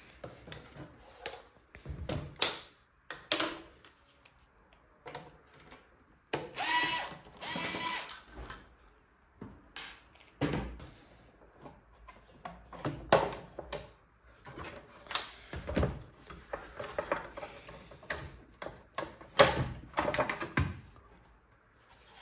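Clicks, knocks and rattles of the plastic housing of a Pfaff hobby 4260 sewing machine being handled and lifted off. A cordless electric screwdriver whirs twice, briefly, about a third of the way in.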